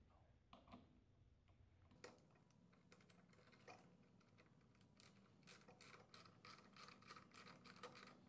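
Ratchet ring spanner clicking faintly as it tightens the clamp bolt on a motorcycle's front fork. A few separate metal clicks come first, then from about halfway a fast, even run of about four to five clicks a second.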